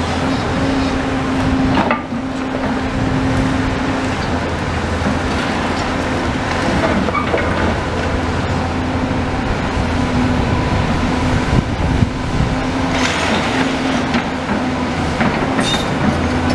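Diesel engine of a tracked demolition excavator running steadily with a low hum while its grab works the wall of a brick building, with scattered knocks and crunches of falling brick and rubble.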